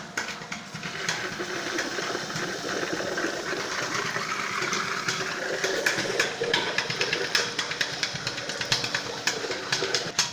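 Soybean grinding machine running steadily as soaked soybeans are fed into its hopper, its motor drone laced with many sharp clicks and knocks from the grinding.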